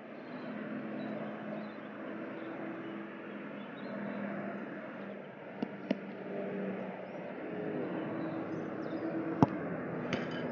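A football kicked hard in a penalty: one sharp thud about nine seconds in, with a second, softer knock shortly after. A steady background drone like distant traffic runs underneath.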